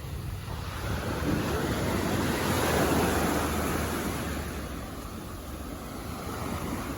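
Sea waves washing onto a beach: a wave swells up about a second in and dies away a few seconds later. Wind rumbles on the microphone underneath.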